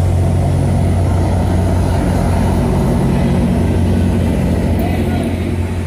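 An EMD F59PHI diesel passenger locomotive running, with a loud, steady, low engine drone that does not change.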